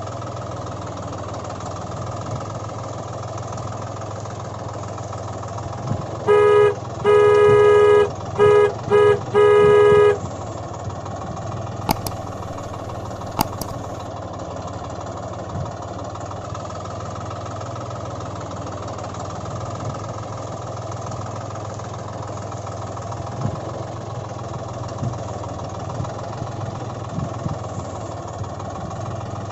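Tractor engine running steadily at a low hum, with a horn honking five times in quick succession, the second blast the longest. Two sharp clicks follow shortly after the honks.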